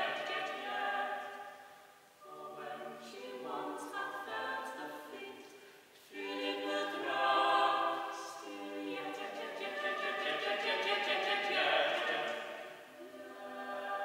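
A cappella mixed vocal quartet, two women and two men, singing an early 17th-century English part-song in sustained chords, with short breaks between phrases about two and six seconds in and again near the end.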